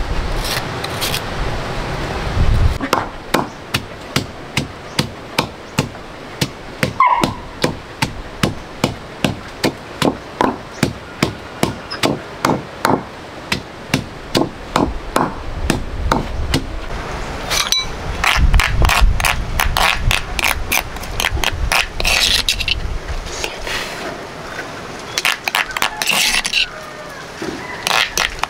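Repeated sharp knocking strikes, about two a second, steady for some fifteen seconds, then coming faster and more irregularly.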